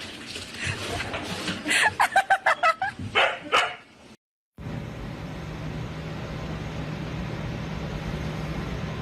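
A dog barking: a quick run of about seven short barks around two seconds in, then two more a second later. After a brief cut to silence, a steady low hum runs on.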